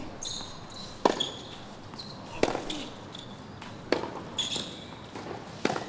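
Tennis rally: racket strings striking the ball back and forth on a hard court, four sharp hits about a second and a half apart.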